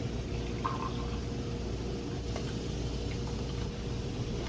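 Coffee maker brewing: a steady hiss of hot water, with a faint steady hum underneath.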